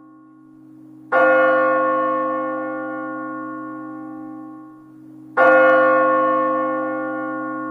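A large bell tolling, struck twice about four seconds apart; each stroke rings on and fades slowly.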